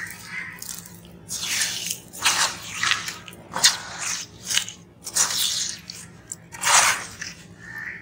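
Hands crushing and crumbling wet sand-cement chunks in a plastic tub of water, in a run of irregular wet crunches and splashes, the loudest about a second before the end.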